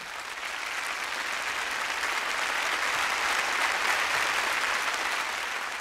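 Audience applauding, swelling at first and then holding steady, easing off near the end.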